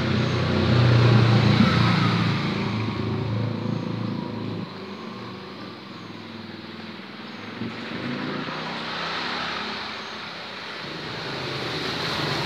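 A motor scooter's engine passing close and fading as it rides away, loudest about a second in. Near the end another motorcycle's engine grows louder as it approaches.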